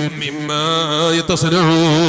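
A man's voice chanting into a microphone in a drawn-out melodic style, holding long wavering notes, with a short break about halfway through.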